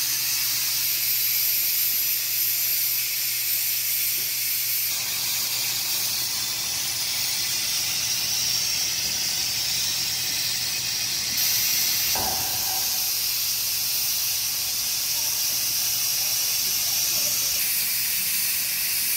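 Steady hiss of escaping steam from a live-steam model locomotive being readied, with one brief low knock about twelve seconds in.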